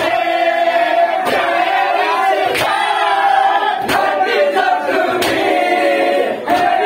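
A crowd of men chanting together, with a loud strike about every 1.3 seconds as hands beat bare chests in unison: matam keeping time with the chant.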